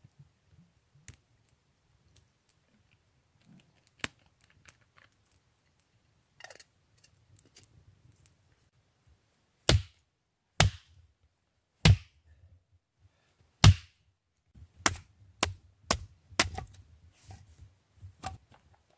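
Hatchet splitting kindling on a log: about halfway in, four sharp chops one to two seconds apart, then a quicker run of lighter knocks of wood on wood.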